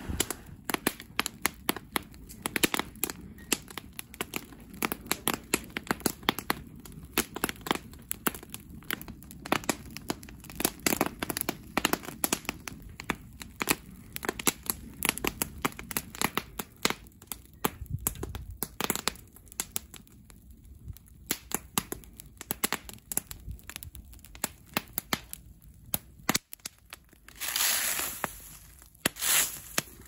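Dry fallen leaves burning in an open fire, crackling and popping irregularly and densely. Two longer, noisier bursts come near the end.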